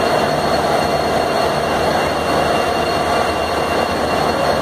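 Locomotive running close by: a steady drone with low hum and a couple of high, steady whining tones over it.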